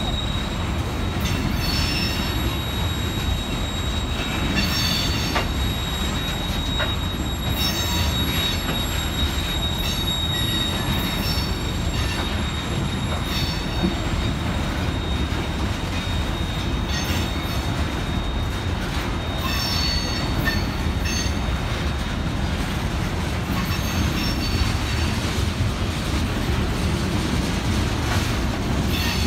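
Freight train of open-top hopper cars rolling past at close range: a steady low rumble of wheels on rail, broken every few seconds by short bursts of high wheel squeal, with a thin high squeal holding through roughly the first dozen seconds.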